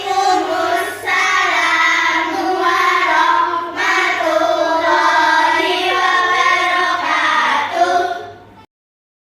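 A class of young children's voices together in a sing-song unison chorus, in phrases of a second or so. It cuts off abruptly near the end.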